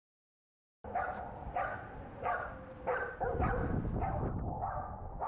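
Dog barking in a quick series of short barks, starting about a second in and coming roughly every two-thirds of a second.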